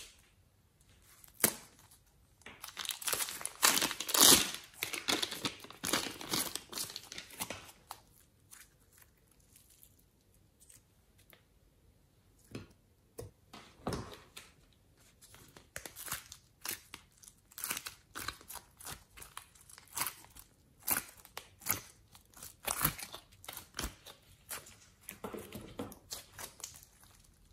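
Soft slime and clay being handled: squeezed from a plastic piping bag and pressed out of plastic moulds into a glass dish. A dense run of sticky crackling comes a few seconds in, followed by scattered short crackles and clicks.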